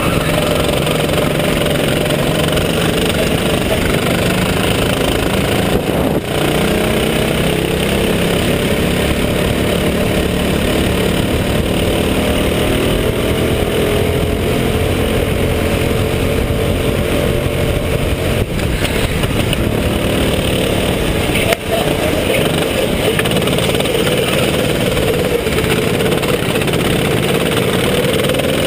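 Go-kart engine running hard, heard from on board the kart, its pitch rising and falling slowly with the throttle through the corners. There are brief dips in loudness about six, eighteen and twenty-one seconds in.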